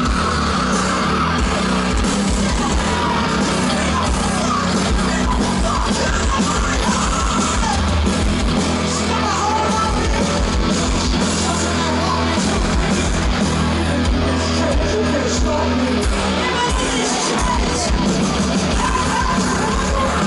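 Heavy metal band playing live at a steady high volume, with yelled and sung vocals over guitars and drums, heard from within the crowd.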